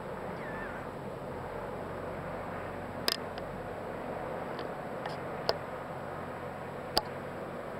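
Steady rushing outdoor background noise, with a brief warbling chirp near the start and three sharp clicks about three, five and a half and seven seconds in.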